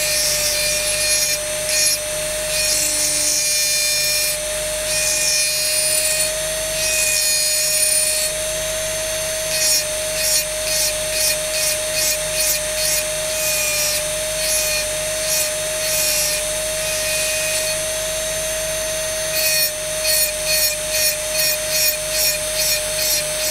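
Handheld rotary engraving tool running with a steady whine while its diamond burr grinds into crystal glass, wetted by a water drip feed. The grinding comes in short repeated scratching strokes, quickening to about two or three a second near the end.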